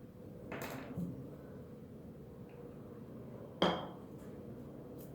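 Hard model pieces being handled on a worktable: a short scrape or rustle just after the start, then one sharp clink as a piece is set down about three and a half seconds in.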